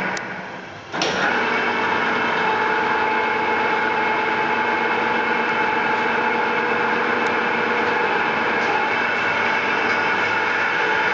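1970 Asquith portable radial drilling machine's electric drive and gearing running with a steady mechanical hum. It winds down in the first second, then starts again abruptly with a click about a second in and runs steadily on.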